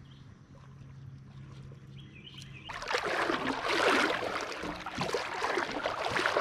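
Faint low hum, then about two and a half seconds in a sudden, fluttering rush of river water, like a riffle or shoal close to the microphone, that carries on steadily.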